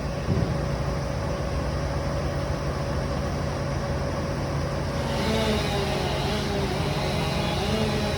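A heavy engine running steadily, with a short knock about half a second in and a wavering whine joining it from about five seconds in.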